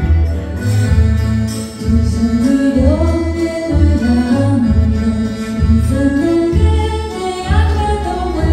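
Singing with instrumental accompaniment over a steady low beat, about one pulse a second.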